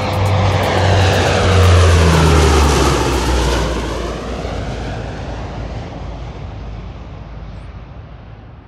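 Lockheed C-130H Hercules airtanker's four turboprop engines droning as it flies low past, loudest about two seconds in, then fading steadily away.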